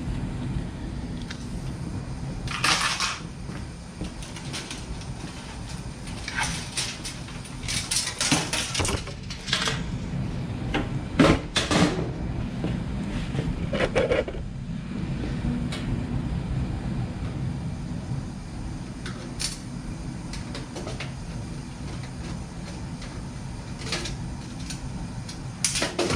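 Scattered knocks, clicks and metallic clatters of a desktop computer being taken apart by hand for scrap, over a steady low hum.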